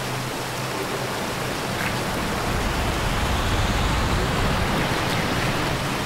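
Rushing water of a waterfall: a steady hiss of white water that grows a little louder about halfway through.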